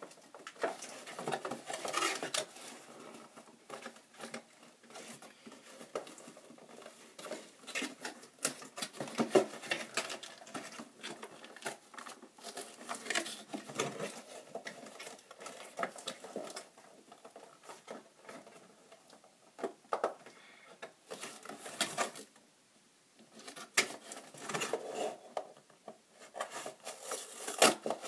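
Hands handling hard plastic toy packaging and a fingerboard: irregular clicks, taps and scrapes with short pauses.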